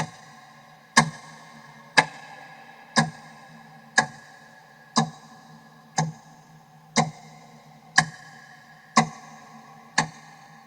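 Clock ticking once a second, each tick a sharp click with a ringing tail. The ticking stops after a last tick near the end, and the ring fades away.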